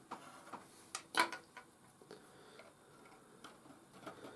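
Quiet, scattered light clicks and taps from a plastic glue bottle and thin laser-cut MDF kit parts being handled and fitted together, the sharpest about a second in.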